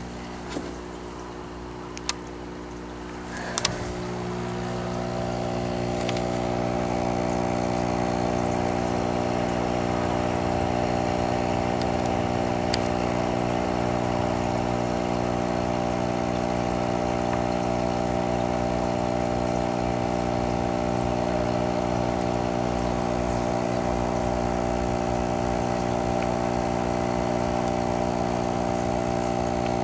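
A few light handling clicks, then a steady electric motor hum made of several constant tones comes in about four seconds in, swells over a couple of seconds and holds unchanged.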